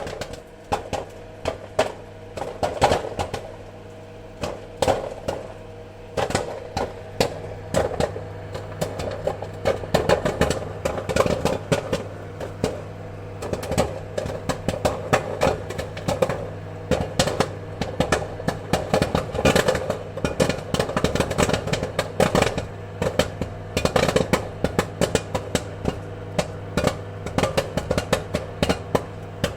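Popcorn kernels popping in quick, irregular cracks, fewer at first and coming thick and fast from about eight seconds in, over a steady low hum.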